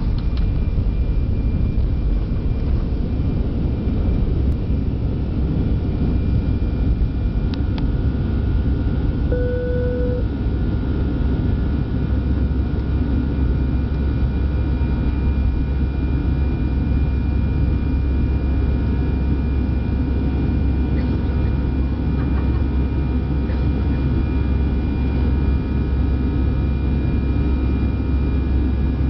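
Airbus A319 jet engines heard from inside the cabin during takeoff: a steady, loud rumble with thin whining tones over it. The low rumble gets heavier about twelve seconds in. A short single tone sounds about nine seconds in.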